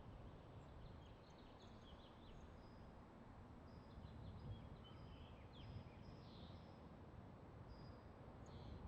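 Faint ambient recording: scattered small-bird chirps and short whistled notes over a steady low rumble and hiss.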